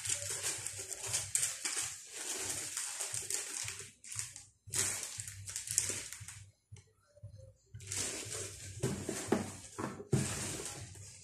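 Plastic wrapping and paper mailer bags rustling and crinkling as parcels are handled, in stretches broken by short pauses about four and seven seconds in.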